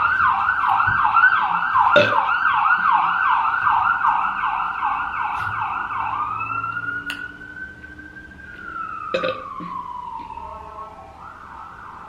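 Emergency vehicle siren, first in a fast yelp for about six seconds, then switching to a slow wail that rises once and falls away as it fades.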